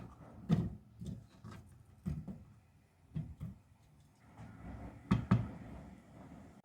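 A series of separate light knocks and clatters, about seven in all, with two close together about five seconds in: household objects being handled and set down.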